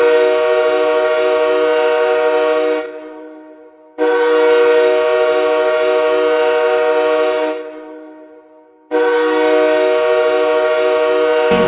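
Hockey goal horn: an air horn sounding a chord of several steady notes, blasting three times. Each blast holds for about three seconds, then fades out before a short gap. Goal-song music starts just at the end.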